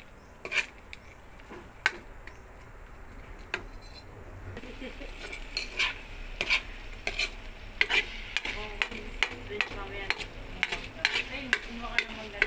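Metal spatula stirring and scraping sautéed shrimp paste (alamang) in a wok, with repeated clinks against the pan. The frying sizzle is faint at first and grows louder about a third of the way through.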